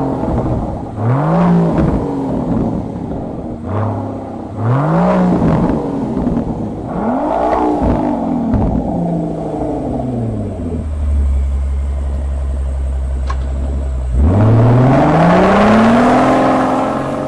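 Rolls-Royce Phantom Series II's twin-turbo V12, Mansory-tuned, revved four times, each rev rising and falling back. After a steady low drone, the engine note climbs steadily near the end as the car pulls away.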